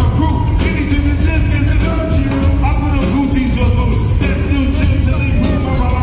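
Loud live music through a concert PA: a performer's amplified vocals over a steady beat with heavy bass.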